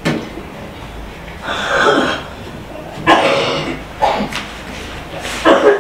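A person's voice in three short outbursts with no clear words, about a second and a half in, about three seconds in and near the end. A single sharp click comes right at the start.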